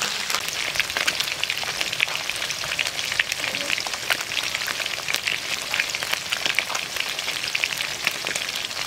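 Small battered cá linh fish deep-frying in hot oil: a steady, dense crackling sizzle with many sharp pops of spattering oil.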